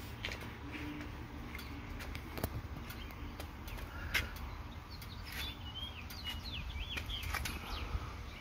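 Faint bird chirps, a run of short rising and falling calls in the second half, over a low steady rumble with a few sharp clicks.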